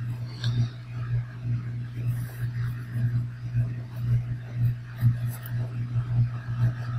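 Steady low hum that swells and fades every half second or so, with faint scratching of a felt-tip pen on sketchbook paper.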